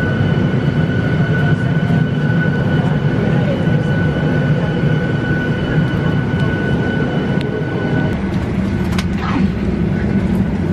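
Airliner cabin noise during boarding: a steady low hum of the cabin air and equipment, with a steady high whine that cuts off about eight seconds in. A few short clicks and knocks near the end.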